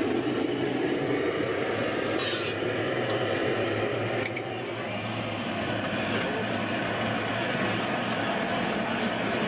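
Metal clinking and clicking as the hot-bulb preheating burner under a Lanz Bulldog tractor's engine is worked by hand. A few sharp clicks are followed in the second half by a regular run of light ticks, about three a second, over a steady low hum.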